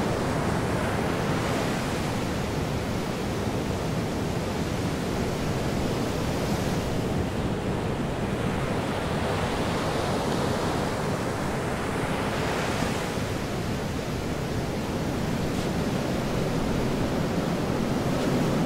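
Ocean surf washing onto a shore, a steady wash that swells now and then.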